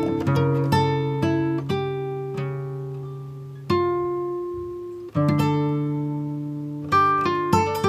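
Background music: plucked acoustic guitar playing a slow, gentle melody of single notes and chords that ring out and fade.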